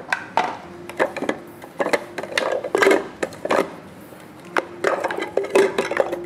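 Irregular clatter of knocks and clicks as onion and fox nuts are dropped into an electric food chopper's plastic bowl and the bowl and lid are handled and fitted, before the motor is switched on.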